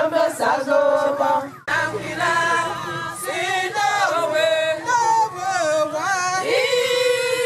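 A choir singing, several voices together. The song cuts out abruptly for a moment about a second and a half in, then carries on.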